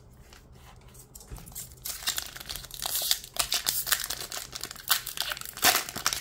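Foil wrapper of a Pokémon booster pack being torn open and crinkled by hand; crackling starts about two seconds in and grows loudest near the end.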